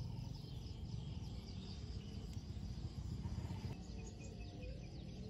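Outdoor marsh ambience: a steady low rumble under many faint, short, high-pitched insect chirps.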